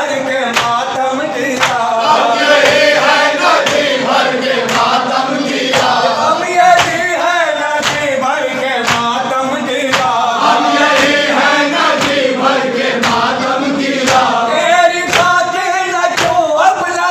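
A group of men chanting a Urdu noha (lament) in unison, with a steady beat of open-handed chest-slapping (matam) keeping time under the voices.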